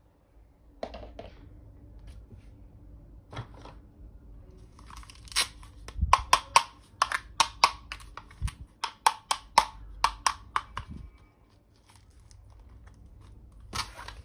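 Toy packaging being torn open: a few light rustles and clicks, then a quick run of short, sharp rips through the middle, and one more rip near the end.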